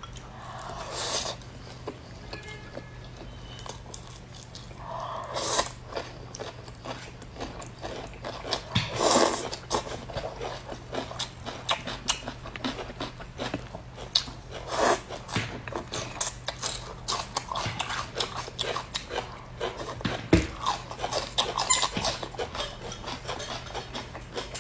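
Close-miked eating: chopsticks clicking against ceramic bowls and plates, with chewing and mouth noises, over a steady low hum.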